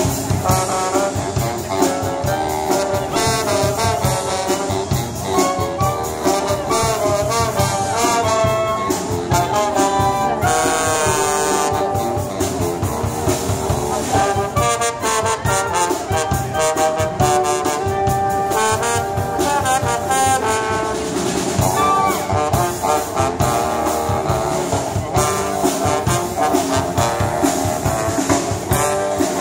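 Street band of saxophones, trombone and drum kit playing a tune live, the horns carrying the melody over a steady drum beat.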